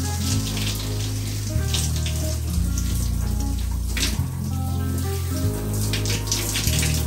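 Running water hissing and splashing unevenly, over background music with a slow, deep bass line.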